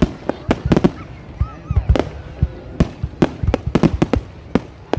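Fireworks display: a rapid, irregular barrage of sharp bangs, several a second.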